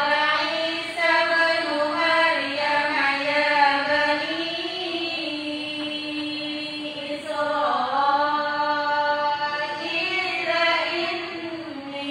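A group of women's voices chanting Qur'anic recitation together in unison, in phrases of long, drawn-out, wavering notes.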